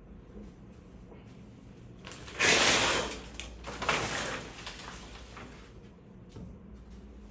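Shower curtain pulled open along its rod, the rings scraping and the fabric rustling, in two pushes about a second apart, the first the louder.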